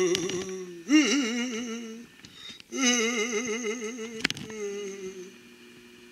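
A person's voice humming in long, wavering notes with a strong, even vibrato: a short tail at the start, then a note of about a second, then a longer one of about two and a half seconds that fades out. A sharp click sounds about four seconds in.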